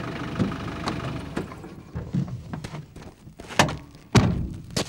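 A Land Rover pickup's engine idling, fading after about two seconds, then loud thunks of a car door about three and a half and four seconds in, with footsteps on dirt.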